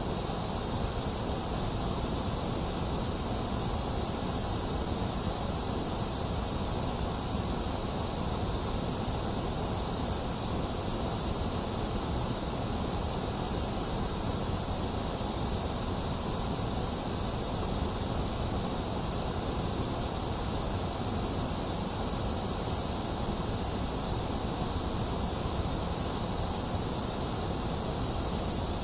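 A box fan blowing steadily, mixed with a steady rain hiss, with no thunder. The sound stays even throughout, a low rumble under a bright high hiss.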